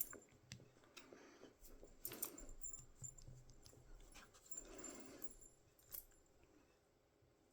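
Faint clicks and small rattles of metal handcuffs being worked with a shim, a few separate clicks spread through quiet handling.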